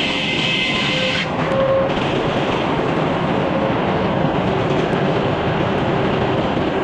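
Sawmill running steadily with a dense mechanical noise. A higher hiss from the saw cutting stops abruptly about a second in.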